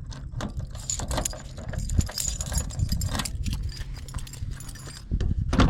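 Rapid clicks and knocks with light metallic jingling, the sound of small metal items or parts being handled, with a louder clatter near the end.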